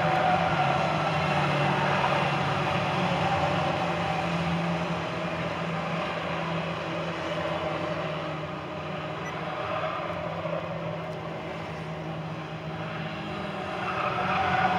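A pack of Ministox stock cars racing past, several small engines running hard at once. The sound is loudest as cars pass in the first few seconds, eases in the middle as the pack moves away round the corner, and swells again near the end as more cars come by.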